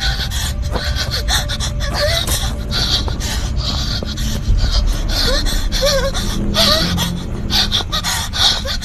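A running person's heavy breathing, quick rhythmic gasps a few times a second, over a low rumble of wind on the phone's microphone.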